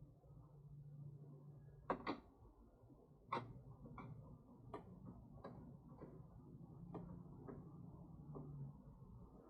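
A string of light, sharp clicks and taps, irregularly spaced about every half second to a second, from hand work with a screwdriver driving screws into a plastic saddlebag-lid speaker cut-in kit.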